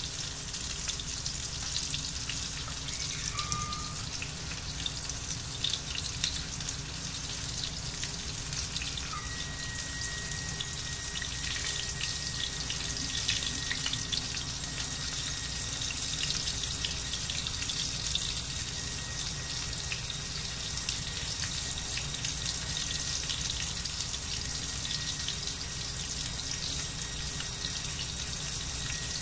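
Fish pieces sizzling and crackling in hot oil in a steel frying pan over a gas burner, with a steady low rumble from the gas stove's lit burners.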